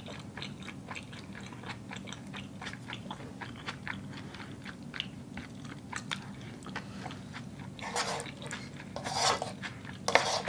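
Close-up chewing of a mouthful of spaghetti, with many small wet mouth clicks. Three short, louder noises come near the end.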